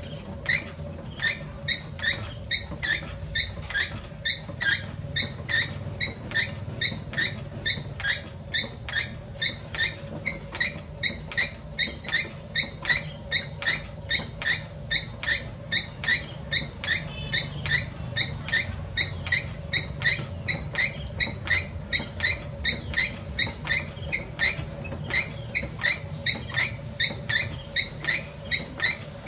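Spinning potter's wheel squeaking in an even rhythm, a little more than two short high squeaks a second, over a low steady hum.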